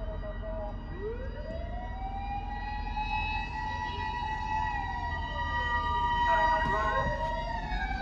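Fire engine's mechanical motor siren winding up from a low pitch to a wail about a second in, sliding down, then winding up again near the end.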